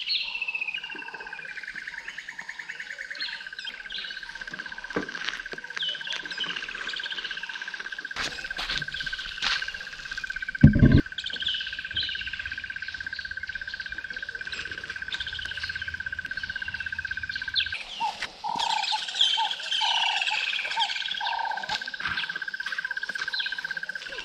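Wild birds calling, with short falling notes repeated about once a second and lower calls near the end, over a continuous high-pitched trill held on one pitch. A brief low thump about eleven seconds in.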